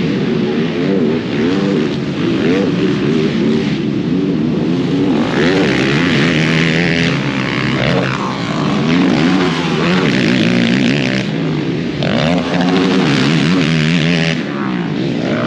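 Racing ATV engines revving up and down as the quads run on a motocross track, the pitch rising and falling constantly, with louder, harsher stretches about five seconds in and again near twelve seconds.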